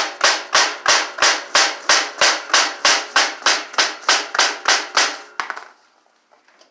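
Soft-faced hammer tapping a steel wheelie-machine frame section, about seventeen even blows at roughly three a second, driving one main tube into the other until it seats. The blows stop a little over five seconds in.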